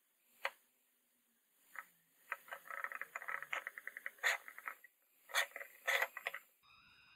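Paper towel rubbed hard over a wooden telephone casing, working a liquid finish into the wood. First a couple of single swipes, then a fast run of scratchy back-and-forth strokes, then a few stronger swipes near the end.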